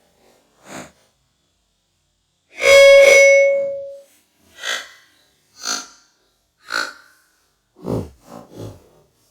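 iPhone system sound effects played back slowed down: a faint short blip, then a loud ringing electronic chime lasting about a second and a half, followed by short tones about once a second and a quick run of three near the end.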